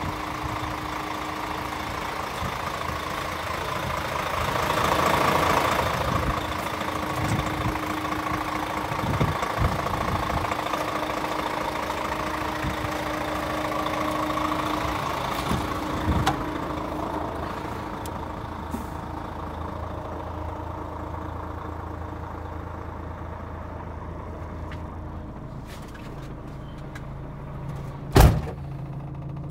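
DAF CF440 truck's 10.8-litre PACCAR MX-11 straight-six diesel idling with a steady hum. A single loud, sharp knock comes near the end.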